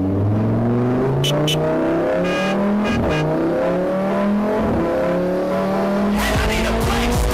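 Racing car engine accelerating hard through the gears, its pitch climbing and dropping back at each upshift. About six seconds in, a noisier, rougher sound joins it.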